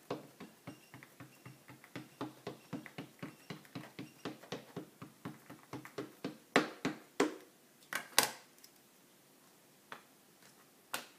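An ink pad being dabbed repeatedly onto a rubber stamp mounted on an acrylic block, a quick run of light plastic taps at about four a second, inking the stamp thoroughly. After about six seconds the tapping stops and a few louder plastic clacks follow as the pad and block are handled and set down.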